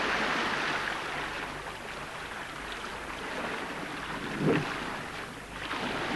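Wind and rushing water from a sailing ship's bow pushing through choppy water, with wind buffeting the microphone. The rush is loudest at first and then eases. There is a single brief sharp sound about four and a half seconds in.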